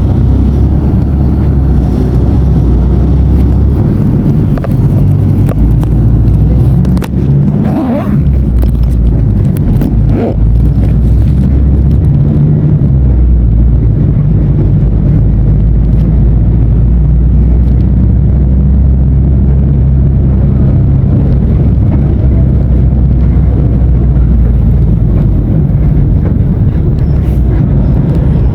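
Diesel engine of a Mercedes-Benz OF-1519 BlueTec 5 bus running with a steady low drone. There is a brief dip and shift in pitch about seven to ten seconds in.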